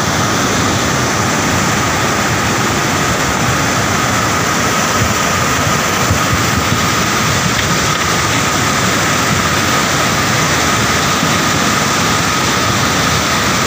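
Muddy flash-flood torrent rushing over boulders in a mountain stream, a loud, steady rush of water with no letup.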